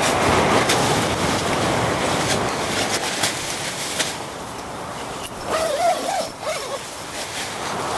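Steady rushing noise of wind and surf, with a brief wavering tone about six seconds in.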